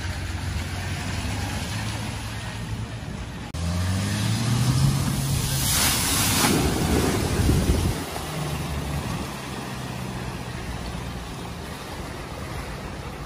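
A van's engine running steadily, then revving up as it drives into deep floodwater in a ford, throwing up a big wave of water in a loud splash about six seconds in. After the splash the engine keeps running with water washing around it.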